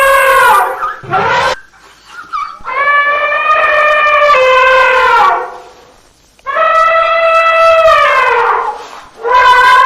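Elephant trumpeting: a run of long calls, each two to three seconds, holding a steady pitch and then dropping away at the end, with short gaps between them.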